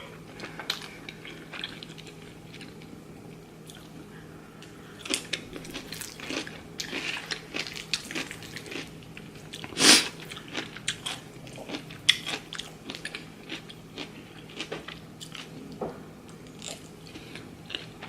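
A person eating close to the microphone: irregular chewing and biting with crisp little crunches, and one louder crunch about ten seconds in.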